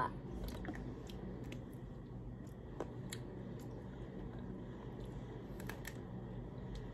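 Quiet eating sounds: soft bites and chewing on chocolate-coated ice cream bars, with a few faint scattered clicks over a steady low hum.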